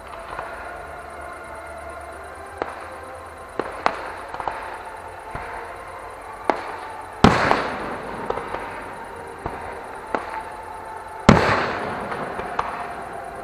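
Aerial fireworks going off: scattered sharp bangs, then two big booms about seven and eleven seconds in, each trailing off slowly.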